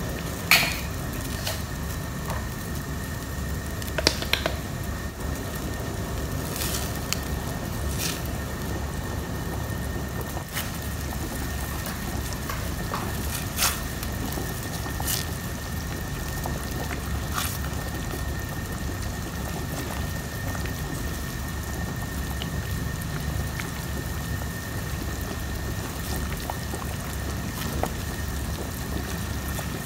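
Pot of fish soup boiling on the stove: a steady bubbling rumble with scattered sharp pops, over a faint steady high tone.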